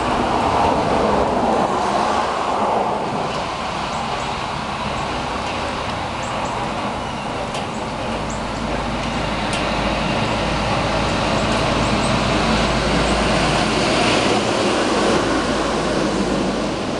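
Steady rain falling on a steel drum, with scattered drips ticking. From about halfway a heavy truck passes on the wet road, and its tyre hiss and low rumble build to a peak near the end.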